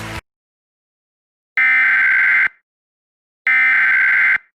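Emergency Alert System SAME header tones: two loud bursts of warbling digital data tones, each just under a second long and about a second apart, after the TV sound cuts off abruptly right at the start.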